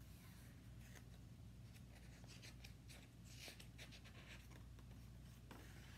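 Faint paper rustling, a few soft scattered rustles and ticks, as the pages of a picture book are handled and turned.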